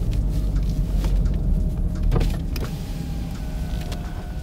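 Car on the move heard from inside the cabin: a steady low engine and road rumble with a few light clicks and knocks, getting a little quieter after about two and a half seconds.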